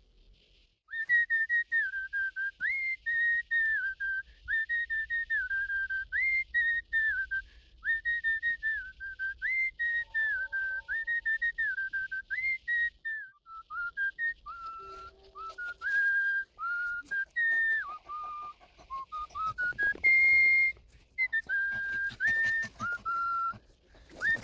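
Whistling of a patriotic tune: a clear single-note melody in short stepped phrases that repeat evenly at first, then wander lower and break up in the second half.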